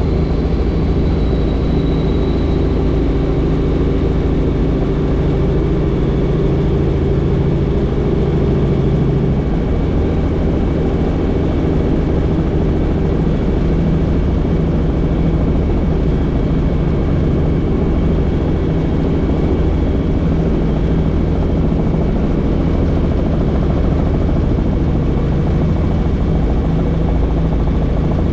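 Helicopter in flight heard from inside the cabin with the doors off: steady, loud rotor and engine noise mixed with rushing air.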